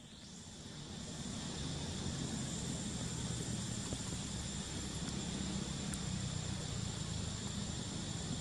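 Steady outdoor ambience: a low rumble under a thin, high, steady insect-like drone and hiss, fading up over the first couple of seconds.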